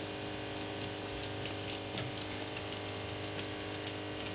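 Hot oil in a kadai bubbling and sizzling around a batter-coated naan frying in it, with scattered small crackles. A steady low hum runs underneath.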